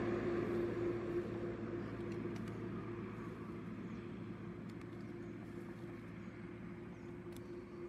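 An engine running steadily with a low hum, slowly growing fainter.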